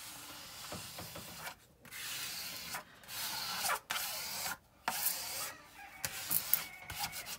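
Plastic cover film being smoothed back down onto a sticky diamond-painting canvas, a rubbing, rustling sound in several sweeping strokes with short pauses between them.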